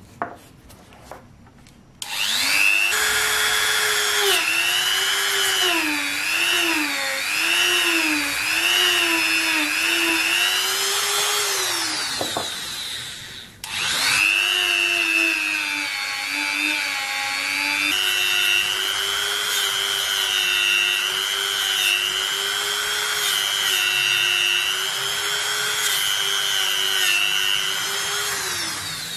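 Dremel rotary tool spinning a polishing wheel against the metal cylinder of a toy revolver: a high whine whose pitch wavers as the wheel is pressed to the metal. It starts about two seconds in, winds down around twelve seconds, starts again a couple of seconds later and winds down at the end. A few soft clicks come first as the lid of the polishing-compound jar is handled.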